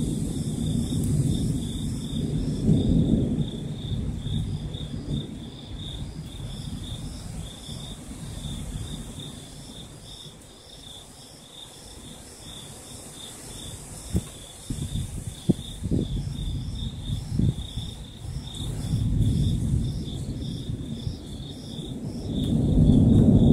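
Thunder rumbling in rolling waves, fading in the middle and swelling again near the end, over a steady chorus of night insects chirping in even pulses. A few sharp cracks come about two-thirds of the way through.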